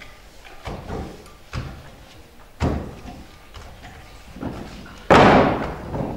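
Scattered knocks and thumps of actors moving things about on a wooden stage, then one loud slam about five seconds in that dies away over about a second.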